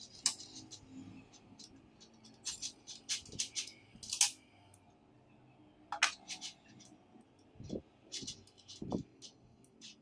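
Small neodymium magnetic balls clicking and snapping together as they are fitted into a ring, with sharp, irregular clicks, some in quick runs. A couple of duller knocks come near the end.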